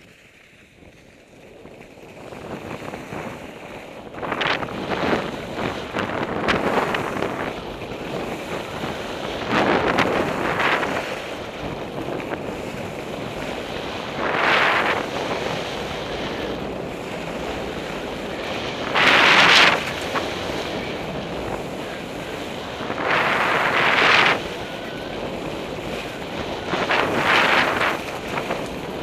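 Wind rushing over a helmet camera's microphone as a skier gathers speed downhill, building up over the first few seconds. Skis hiss and scrape across soft spring snow, swelling into louder surges every four or five seconds with each turn.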